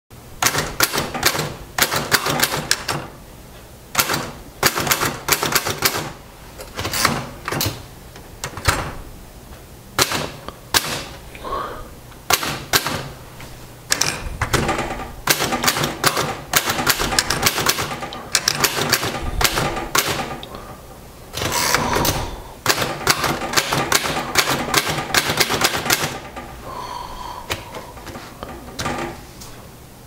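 1938 Royal DeLuxe manual portable typewriter being typed on: quick runs of sharp keystroke clacks with short pauses between words, and carriage returns between the lines.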